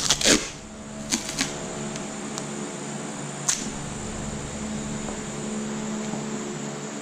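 Steady machine hum, like a fan running, with a few sharp clicks and knocks of parts being handled: a cluster at the start and single ones over the next few seconds.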